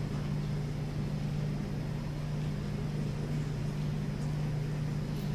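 Room tone of a large hall: a steady low hum with no other sound standing out.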